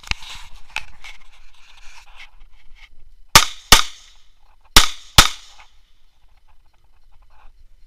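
Four 9 mm pistol shots from a Viking (Yarygin-type) pistol, fired as two quick double taps a little over a second apart.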